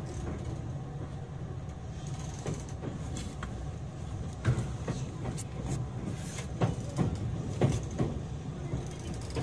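Cabin sound of a JR West 227 series electric train running on the rails: a steady low rumble with irregular sharp wheel knocks, the loudest three coming in the second half.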